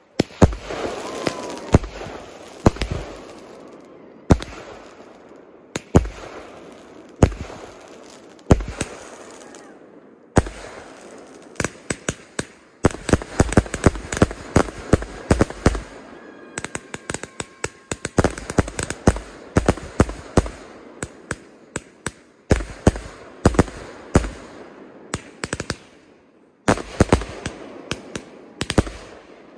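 Fireworks going off in a series of loud bangs. They start as single reports about a second and a half apart, then become a dense, rapid barrage through the middle, with another quick run of bangs near the end.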